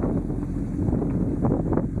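Motorcycle engine running steadily at low speed on a gravel descent, with wind noise on the microphone.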